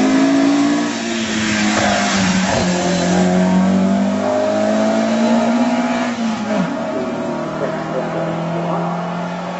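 Lotus Cortina Mk II's twin-cam four-cylinder engine at full throttle as the car accelerates hard past and away up the hill. The engine note climbs and drops back at each upshift, about a second in and again about six and a half seconds in. It is loudest as the car passes and then fades.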